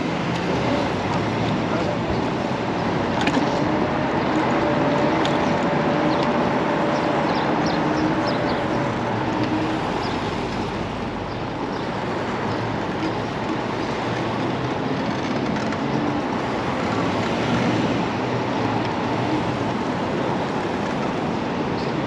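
Steady rush of road and wind noise while riding a Kaabo Wolf King GT dual-motor electric scooter through traffic. A faint whine comes in for several seconds about four seconds in.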